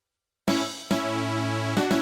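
General MIDI music played by a software synthesizer with a Gravis UltraSound Classic patch-set soundfont, starting abruptly about half a second in after dead silence: synthesized instrument tones over a held bass note, with drum hits.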